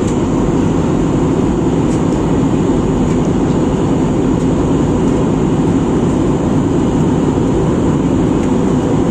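Steady airliner cabin noise in flight: engine and airflow noise with most of its weight in the low range, even and unbroken.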